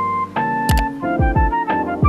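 Background music: electric keyboard chords over a deep kick drum that thumps several times.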